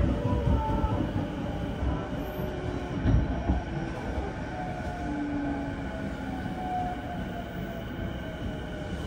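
Running noise heard inside the passenger car of a JR East E233-0 series electric train (Mitsubishi IGBT-VVVF): a steady rumble of wheels on rail with brief faint whining tones coming and going. A couple of low knocks stand out about three seconds in.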